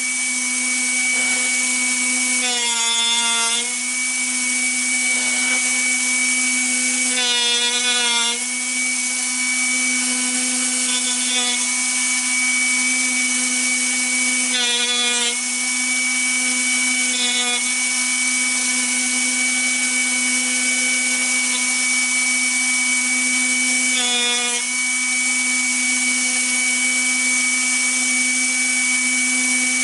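Drill Doctor drill bit sharpener running with a steady motor hum. Several times, for about a second each, a rasping grind rises as the drill bit held in the chuck is turned against the grinding wheel.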